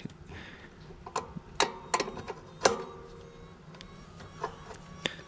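Hand tools on a pressure washer's unloader valve: a few irregular metal clicks and clinks, two of them leaving a short metallic ring, as a wrench works on a tight fitting.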